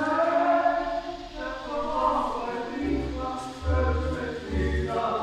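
Milonga music playing: a singing voice over a bass line of short repeated notes.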